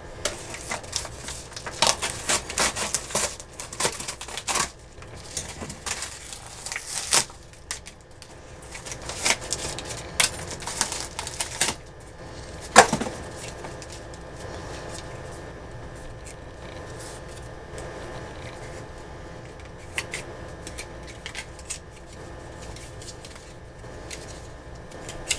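A mailed package being opened by hand: rustling, tearing and clicking of packaging, busiest in the first half with one sharp snap about halfway through. After that only a few faint clicks over a steady low hum.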